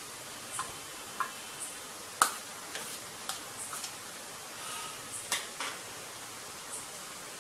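Metal spoon clicking and scraping against bowls while grated beetroot is pushed out of one bowl into another: a run of short sharp clinks, the loudest about two seconds in and another just past five seconds. A steady hiss lies underneath.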